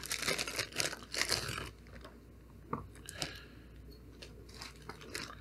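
Knife packaging being handled: a second and a half or so of dense crinkling and rustling, then a few light clicks.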